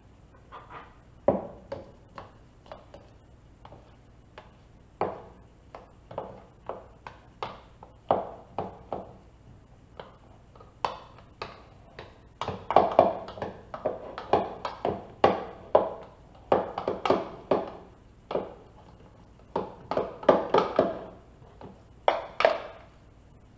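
A metal spoon scraping and knocking inside a plastic blender cup, digging out thick blended paste. The strokes are short and irregular, and they come faster and louder in the second half.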